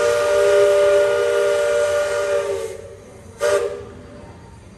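Steam whistle blowing a long blast of several tones sounding together, which cuts off about three seconds in, followed by a short toot about half a second later.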